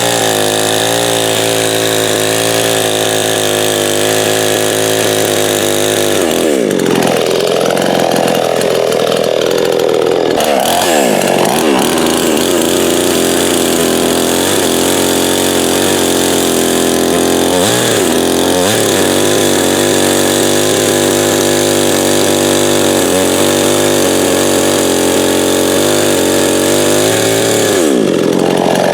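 A 58cc two-stroke gas chainsaw running at high revs while cutting wood. Its pitch sags and recovers as the chain bites in, first about six seconds in, again around ten seconds, and once more near the end.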